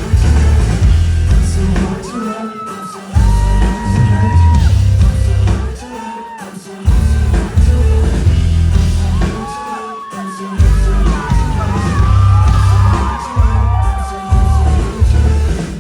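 Live band playing a pop song through the hall PA, loud, with heavy bass and drums that drop out briefly a few times. Fans scream and whoop over it, and the music cuts off at the very end.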